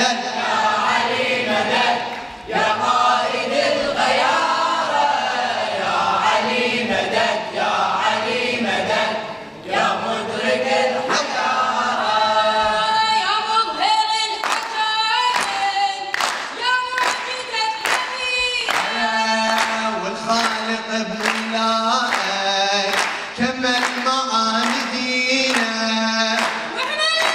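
Group of young men singing a nasheed a cappella, several voices in unison. About halfway through, steady handclaps join in, about two a second, keeping time under the singing.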